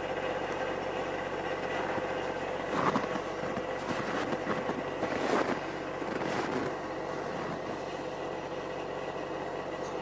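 Snowmachine engine running steadily, with a few louder rushes of noise about three and five seconds in.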